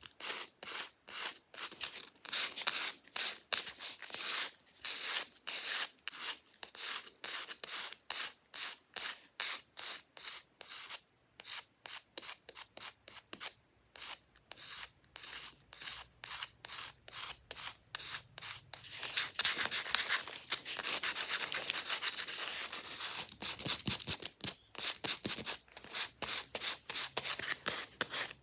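Fake fingernails scratching fast over an object's surface: rapid rasping strokes, several a second, running together into near-continuous scratching for a few seconds about two-thirds of the way through.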